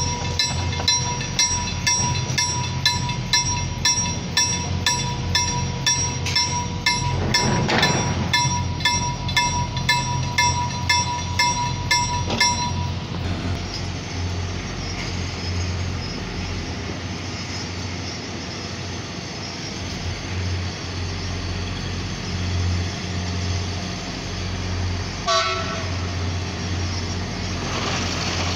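Level-crossing warning bell dinging about twice a second, stopping about 13 seconds in. Then a steady low rumble as an electric multiple unit approaches, with one short toot about 25 seconds in.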